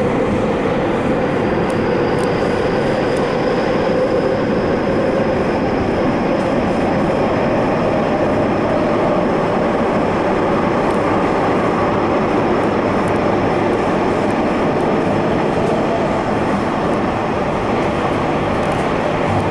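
Subway train running at speed, heard from inside the rear cab: a steady, loud rumble of wheels on rails. A faint high whine, likely from the traction motors, rises slightly in pitch.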